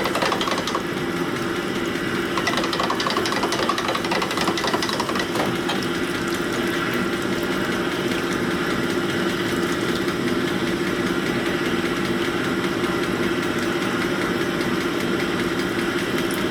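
Pin-bore honing machine running steadily with a constant motor hum while a piston is worked back and forth on the oiled honing mandrel to open up its wrist pin bore. A scratchy, uneven grinding from the piston on the mandrel comes through in the first few seconds.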